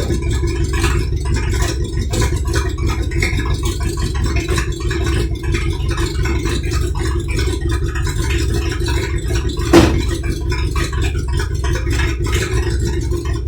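1978 Dodge Power Wagon's V8 engine running steadily with a rattle over its rumble, and one sharp clunk about two-thirds of the way through.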